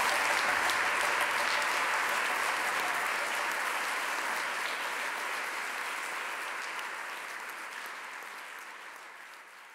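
Audience applause: many people clapping, steadily fading out toward the end.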